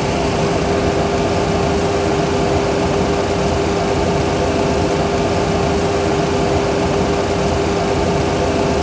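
Steady cockpit noise from a Boeing 737 Classic flight simulator during a high-speed emergency descent: an even rushing hum with one constant tone running through it.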